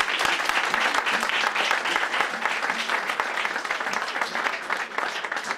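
Audience applauding at the close of a recited poem: dense, steady clapping that eases off slightly near the end.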